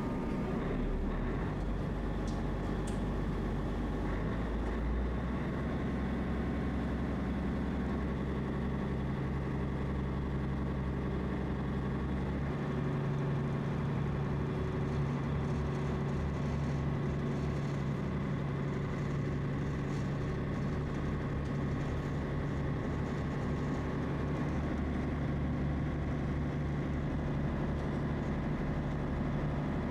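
Small ferry's engine running steadily with a low drone, its note shifting a couple of times.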